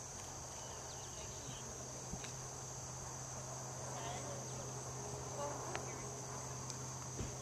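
Steady, high-pitched chorus of insects such as crickets or cicadas, with a low steady hum underneath and a few faint chirps.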